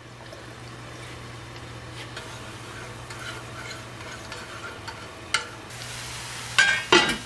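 A spoon stirring a thick tomato sauce as it sizzles in the pan, over a faint low hum. Near the end the pan's lid clatters as it is set on, with a few sharp knocks.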